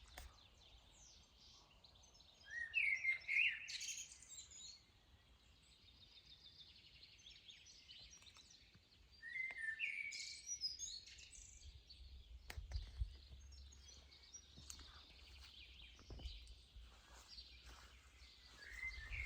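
Small birds singing and chirping in open countryside, with louder song phrases about three seconds in, around ten seconds in, and again near the end, and fainter chirps between them.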